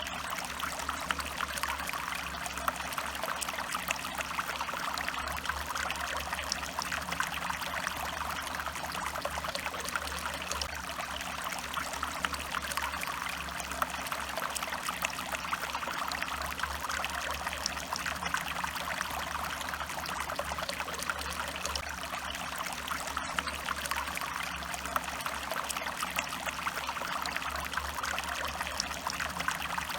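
Stream water flowing and trickling steadily, a dense, even splashing with no let-up.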